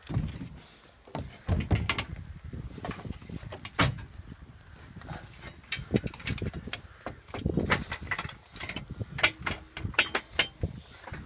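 Irregular knocks, clunks and rubbing as someone climbs down off a camper van roof, hands and feet bumping the metal frame and van body, mixed with handling noise from the phone recording it.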